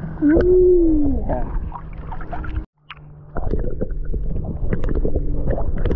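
Action-camera microphone dipped under the sea surface: muffled water noise with dense crackling clicks and a steady low hum. A drawn-out voice is heard in the first second, and the sound drops out briefly a little before the halfway point.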